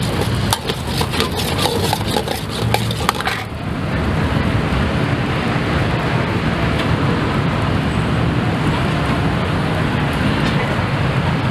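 A metal spatula clattering rapidly against a wok during stir-frying. About three and a half seconds in the clatter stops and a steady rushing noise takes over.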